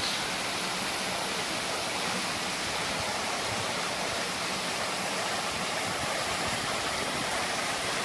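Small waterfall cascading down between boulders into a rock pool: a steady, even rush of falling and splashing water, running with much more water than usual.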